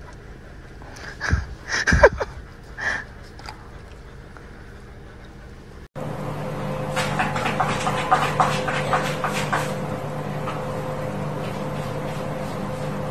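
A few loud sudden sounds, one with a quick falling pitch. Then, after an abrupt change, a cat scratching in the litter of a plastic litter tray: a quick run of scratches over a steady hum.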